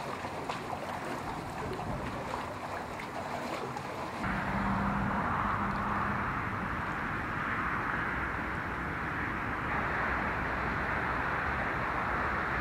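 Outdoor waterside ambience: wind buffeting the microphone over open water, then, after an abrupt change about four seconds in, a steady rushing hiss with a low hum for a couple of seconds.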